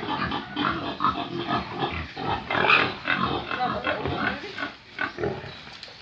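Pigs calling over and over in short, irregular grunts, loudest a little under halfway through and dying down near the end.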